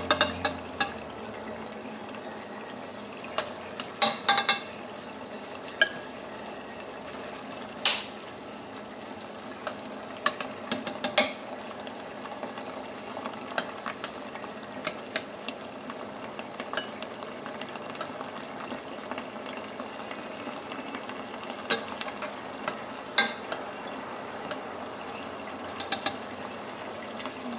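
Chicken sauce simmering in a pot, a steady bubbling sizzle as it reduces toward a thick sauce. A metal spoon scrapes and clinks against the pot now and then, with a few sharp knocks spread through, as chicken pieces are lifted out.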